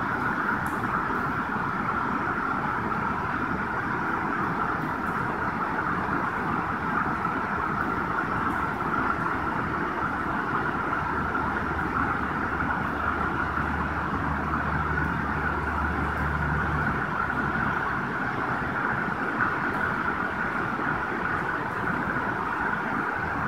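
A shallow river rushing over rocks, a steady, even wash of running water.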